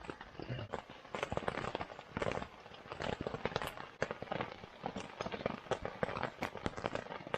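Rain falling on a tent, drops tapping irregularly on the fabric in a dense patter.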